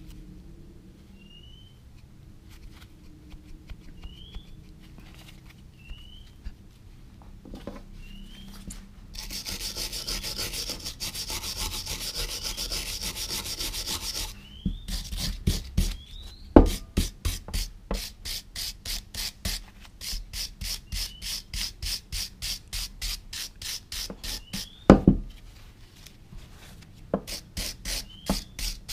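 Hand brush scrubbing rust off steel pliers in quick back-and-forth strokes, about two to three a second, with a couple of sharp knocks against the tool. Before the strokes begin there is a steady hiss for about five seconds.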